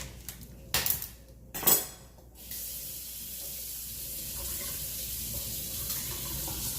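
Dishes clattering twice, then a kitchen tap turned on, with water running steadily into the sink.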